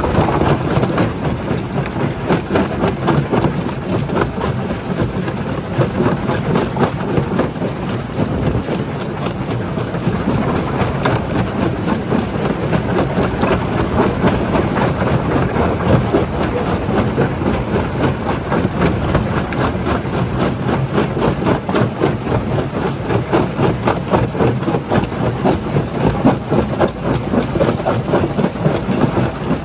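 Primary jaw crusher running and crushing rock: a steady, dense grinding clatter over a continuous machinery drone.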